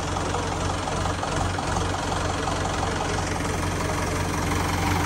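Tractor engine idling steadily with an even, fast low pulse.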